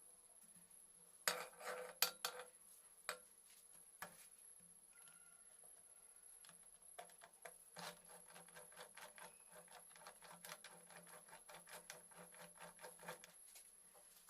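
Metal hand tools and parts clinking during work on a Honda Cub C70 engine. A few sharp knocks come in the first few seconds, then a long run of quick, light clicks for about six seconds.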